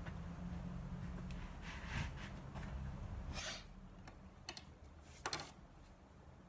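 A few light taps and clicks of things handled on a hard countertop, over a low steady hum that fades out about three and a half seconds in.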